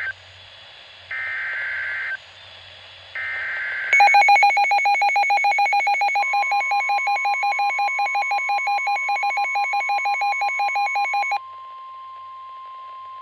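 NOAA Weather Radio alert tones: warbling SAME header data bursts, each about a second long, then a receiver's rapid, loud alarm beeping for about seven seconds. Under the beeping a steady 1050 Hz warning alarm tone starts about six seconds in and keeps going after the beeping stops. Together they announce an incoming severe thunderstorm warning.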